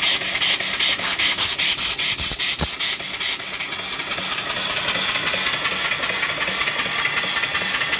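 Small mill steam engine with a 3-inch bore and 4-inch stroke, running slowly with its cylinder blowdown valves open: steam hisses and puffs out of the drain valves in a steady rhythm. The open drains blow condensed water out of the cylinder.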